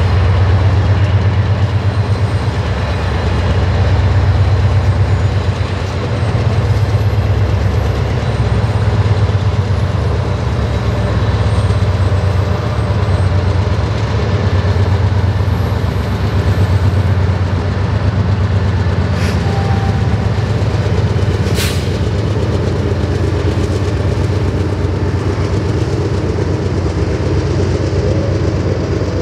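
Montana Rail Link freight train running past: a loud, steady low rumble with fast pulsing throughout, and two sharp clicks about two-thirds of the way through.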